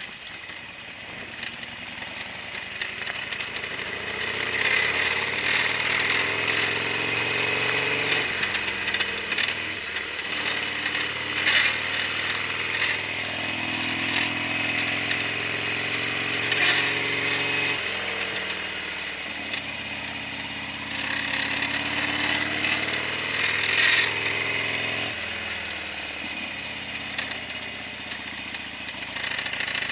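Harley-Davidson Sportster XL1200R's air-cooled V-twin running while the motorcycle is ridden, its pitch climbing and then dropping sharply several times.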